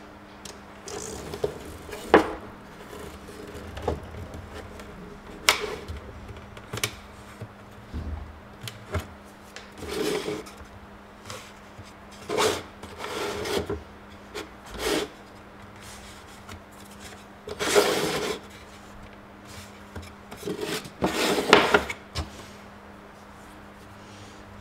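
Hand scraping and rubbing strokes along the edges of an unlacquered wooden tray frame, coming in separate short bursts with pauses between them, plus a few sharp knocks of wood.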